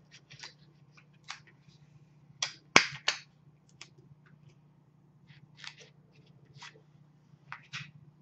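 Tape and paper plate being handled: a scatter of short crackles and taps as tape is torn and pressed onto the paper, the sharpest a little under three seconds in, over a faint steady hum.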